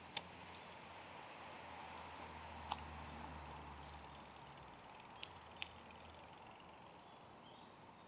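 Quiet outdoor ambience: a low steady rumble with four short sharp clicks, one just after the start, one about three seconds in, and two close together between five and six seconds in.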